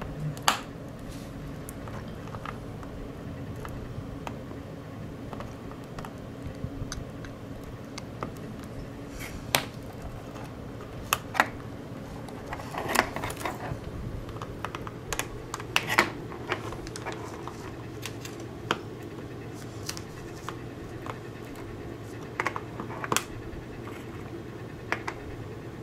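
Scattered sharp clicks and light scraping of small plastic parts and a cable connector being handled as a breakout cable is fitted to the pi-top hub board in its plastic laptop case. The clicks come irregularly, closer together a little past the middle, over a faint steady hum.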